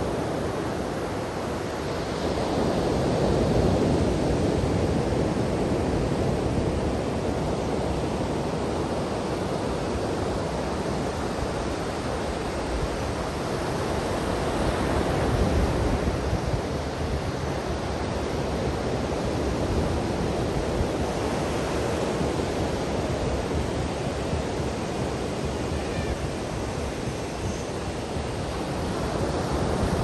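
Ocean surf breaking and washing up a sandy beach, a steady rush that swells louder a few times as waves come in.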